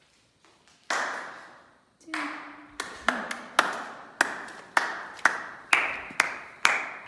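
A person clapping their hands, slowly at first and then steadily about twice a second, each clap ringing out in a short echo.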